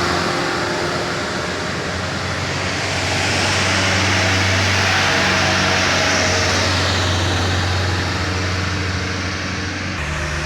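Heavy vehicle running close by: a steady low engine hum under loud, wide rushing noise that swells in the middle and eases off toward the end.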